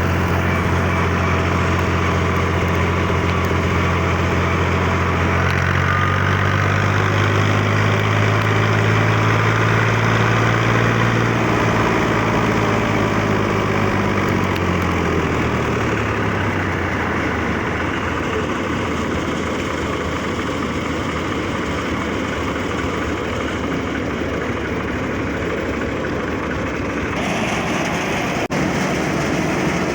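Tractor engine running with a low steady tone. Its pitch rises a little, then slides down and fades about halfway through, leaving a steady mechanical noise.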